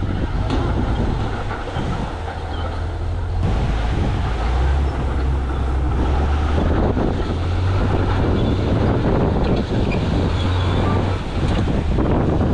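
Heavy diesel earthmoving machinery running, a deep steady engine drone with a scatter of short knocks and rattles.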